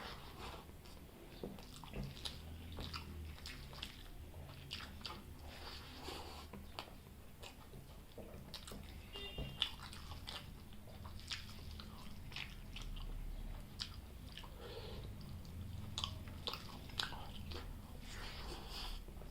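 Close-miked mouth sounds of a person chewing and biting spicy chicken liver and gizzard curry with rice: irregular wet smacks and small crunchy clicks, with one sharper click about halfway through.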